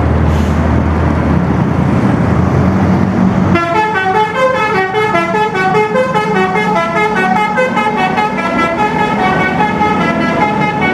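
An Indonesian bus's low engine rumble, then about three and a half seconds in a Basuri telolet horn starts playing a fast melody of chord-like notes, switching pitch several times a second.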